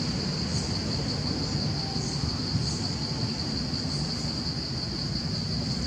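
Steady high-pitched insect drone, with a low background rumble beneath it.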